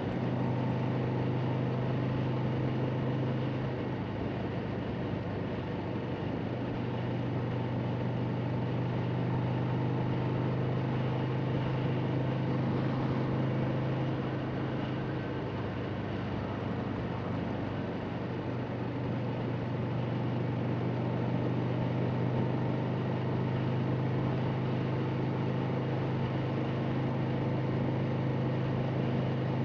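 Harley-Davidson Sportster's air-cooled V-twin engine running steadily at highway cruising speed, heard from the rider's seat with wind rushing past. The engine note eases slightly twice as the throttle is backed off, then picks up again.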